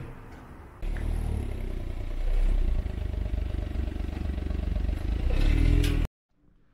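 A motor vehicle running close by, a loud low engine rumble that starts suddenly about a second in, swells a second later, and cuts off abruptly near the end.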